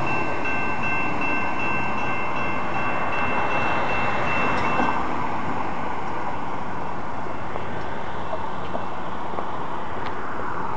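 Freight train cars rolling past, a steady noise of wheels on rail. High steady ringing tones sound over it and stop about halfway through.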